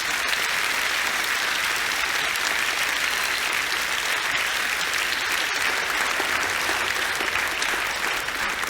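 An audience in a hall applauding: many people clapping together in a steady, sustained round of applause that eases off slightly near the end.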